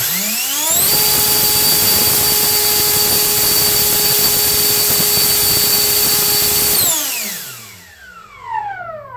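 Dynamax electric ducted fan, driven by a HET 800-73 590 kV brushless motor on 12S, spools up quickly to a steady, loud, high whine with a rush of air. It holds for about six seconds on a static thrust run, then spools down with a falling whine. The run sounds pretty good.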